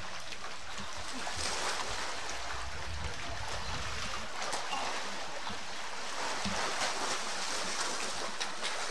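Steady rushing hiss of outdoor ambience, with faint voices now and then.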